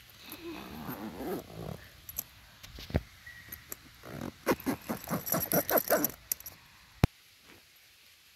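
Backpack zippers being pulled shut: a rasping pull at the start, then a run of quick zipping strokes, followed by a single sharp click about seven seconds in.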